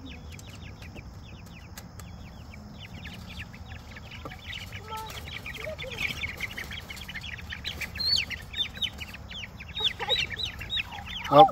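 Young buff-laced Polish chickens peeping rapidly in a small coop, the peeps growing denser and louder about halfway through as a hand reaches in among them to catch one, with a louder call near the end.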